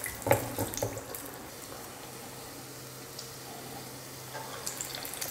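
Black-eyed pea vada batter deep-frying in hot oil, with steady sizzling and bubbling. Louder crackles and spatters come about a third of a second in and again near the end, as another patty goes into the oil.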